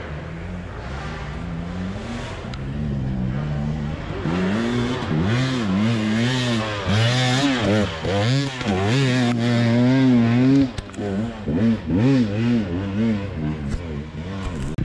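Dirt bike engine revving unevenly under load as it climbs a rutted, muddy hill. For the first few seconds it is fainter and steadier; from about four seconds in it is loud, rising and falling roughly once a second with short throttle blips.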